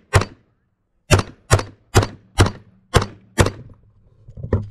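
Rifle shots fired by the shooter on a rifle stage: one shot, a gap of about a second, then six quick shots about half a second apart, and a fainter crack near the end.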